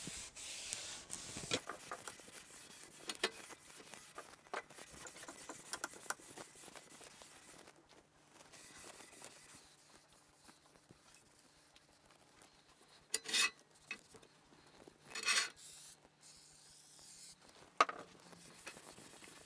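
Quiet rag rubbing and handling on a metal lathe bed's ways, with scattered small clicks. Near the end come two short, louder hissing bursts about two seconds apart.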